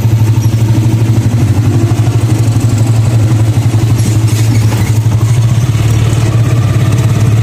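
A tricycle's motorcycle engine running steadily at low speed with a fast, even throb, heard from inside the sidecar.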